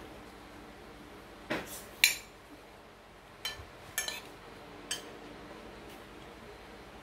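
A metal spoon clinking and scraping against a ceramic plate while scooping fried rice. There are about six sharp clinks, the loudest about two seconds in.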